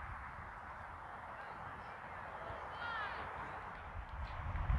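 Faint outdoor ambience at a playing field: a steady low rumble and distant background noise, with one short, faint high call about three seconds in.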